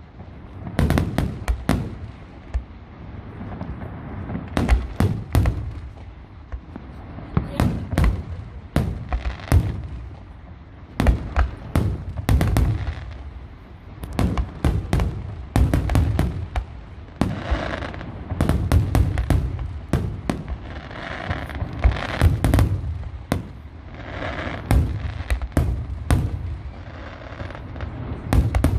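Fireworks display: shells bursting with sharp bangs, many in quick clusters, with a low rumble and crackle between them.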